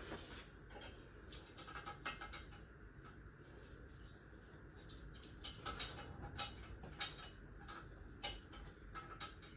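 Faint, irregular light clicks and taps of hand tools and small metal car parts being handled, with a few sharper ticks past the middle.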